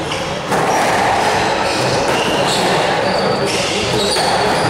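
Steady crowd noise from the spectators around a squash court, starting abruptly about half a second in.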